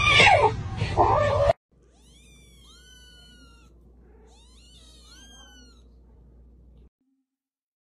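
A cat meowing loudly for about a second and a half, cut off abruptly. Kittens then mew faintly: a quick run of high, thin, falling cries, and a second run about two seconds later.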